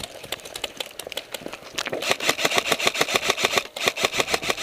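Airsoft electric rifle (AEG) firing on full auto: a rapid, even stream of shots with the gearbox whirring. A few scattered shots come first, then a sustained burst from about two seconds in, with a brief break near the end.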